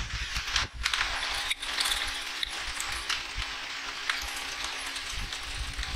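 Hand cleaning of a small ATV engine part: a continuous scratchy hiss of scrubbing or spraying, with frequent small clicks and knocks of metal parts being handled.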